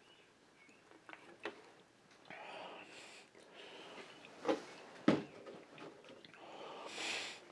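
Swallowing milk from a plastic jug, then heavy breaths and sniffs through the nose, with two sharp handling knocks about two-thirds of the way through.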